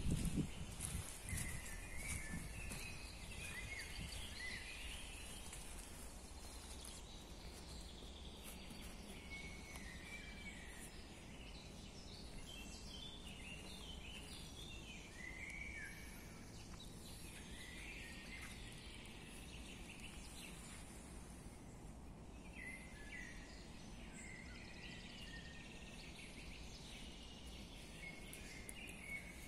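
Forest songbirds singing in short repeated chirping phrases with brief pauses, faint, over a low steady outdoor background. A few handling knocks and rustles come in the first second or two.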